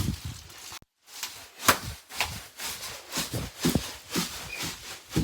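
Bubble wrap being crushed in a steady rhythm, about twice a second, each stroke a crinkle with a dull thud beneath it; there is a short silent break about a second in.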